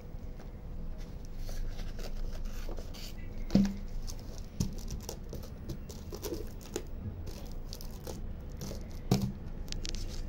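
Hands working self-adhesive contact paper onto a cardboard box: light crinkling and rustling of the plastic sheet with small clicks. There is a dull knock a few seconds in and another near the end, as the box is handled.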